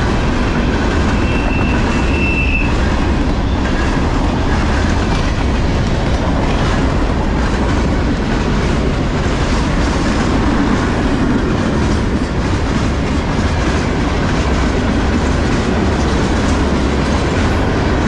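Freight train cars rolling past at close range: a steady rumble with the clickety-clack of wheels over the rail joints. A brief thin high squeal comes in about a second in.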